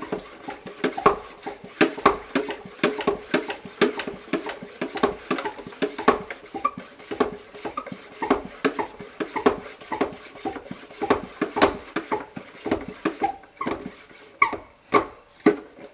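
Hand pump of a plastic garden pressure sprayer worked in steady strokes, about two a second, building up pressure in the tank. The pumping stops near the end.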